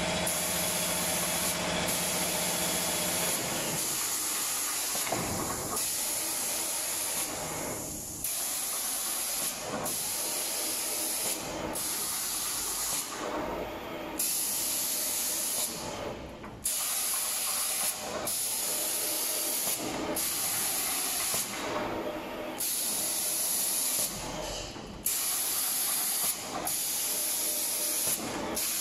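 Spray guns on an automatic reciprocating spray head hissing as they spray paint onto cabinet doors, cutting in and out every second or two as the head sweeps back and forth. A low machine hum runs under it for the first few seconds, then stops.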